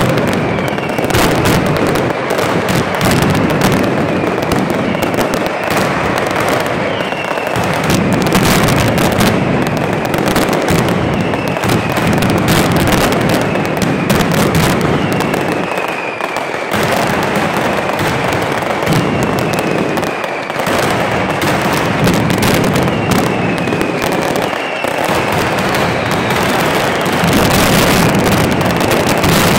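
Night-time mascletà fireworks display: a continuous dense crackle and banging of firecrackers and aerial shells. Whistles falling in pitch are heard every few seconds.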